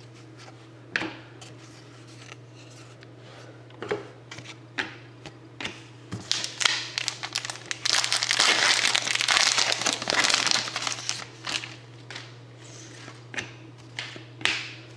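Trading-card packaging and cards handled at close range: plastic or foil wrapping crinkling and rustling, densest in the middle, with scattered light clicks and taps. A steady low hum runs underneath.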